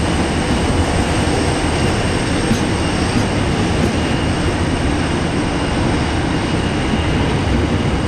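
Grain train hopper wagons rolling past at close range: a steady, loud rumble of steel wheels on the rails.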